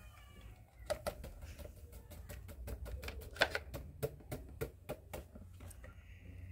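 A paintbrush knocking against the sides of a small plastic bucket as paint is stirred. The knocks come as a run of quick, irregular clicks, about three to four a second, and stop about a second before the end.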